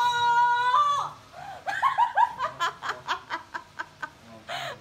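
A woman's long high-pitched cry lasting about a second, then a run of rapid laughter, several short ha-ha bursts a second.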